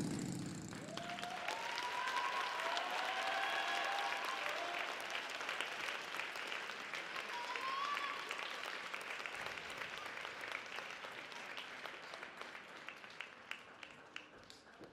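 Audience applauding after the program's music stops, with a few shouted cheers in the first seconds. The applause fades and thins to scattered claps near the end.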